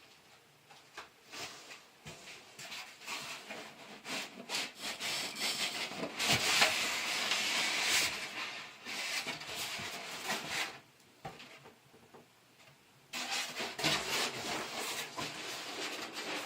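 Cardboard packaging being handled as a miter saw is unboxed: irregular scraping and rubbing, loudest about halfway through, with a brief pause before it starts again.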